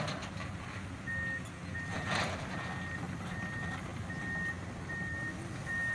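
Reversing alarm on heavy construction machinery beeping at one steady pitch, about once every 0.8 seconds, starting about a second in, over the steady hum of a diesel engine running. A brief knock comes about two seconds in.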